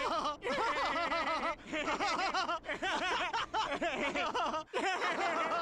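A cartoon man and baby laughing together in repeated bursts, with short breaks between runs of laughter.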